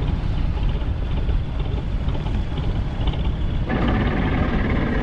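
Fishing boat's engine running steadily, a low rumble mixed with wind on the microphone. About three-quarters of the way through, the sound changes abruptly and a higher, steadier engine tone joins it.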